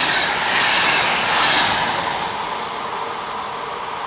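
A double-deck electric passenger train passing close at speed: a rushing noise of wheels on rail and moving air, loudest for the first couple of seconds, then fading as the train pulls away.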